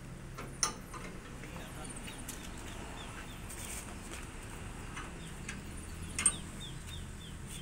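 Two sharp clinks, one just after the start and one near the end, from hand tools worked at the front wheel and suspension of a Suzuki Jimny Katana, over a low steady hum. Short high chirps of small birds come in between.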